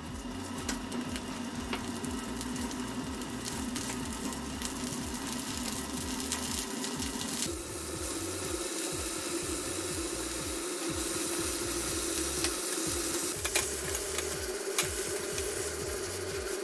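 Cabbage sizzling in hot oil in a frying pan as it is tossed and stir-fried, with a couple of sharp clicks of the wooden spatula against the pan near the end.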